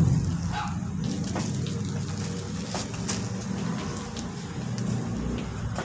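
Plastic packaging and bubble wrap rustling and crinkling as a small box is pulled free of a courier bag and handled, with scattered light crackles over a low steady rumble.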